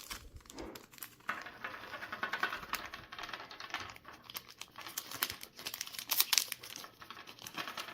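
Trading cards being handled: a run of quick light clicks and rustling as the cards are slid and tapped against each other.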